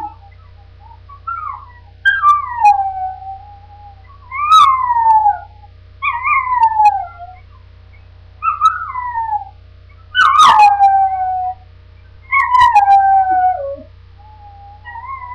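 Dog whining in a series of about seven drawn-out, high whines, most sliding down in pitch, one every second or two. A sharp knock comes about ten seconds in.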